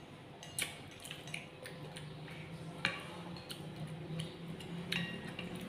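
Quiet eating sounds: chopsticks tapping and picking at ceramic plates, giving a few scattered light clicks.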